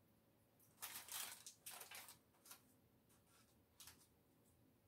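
A few faint, soft scrapes and rustles as lentil loaf mixture is moved and packed into a parchment-lined loaf pan.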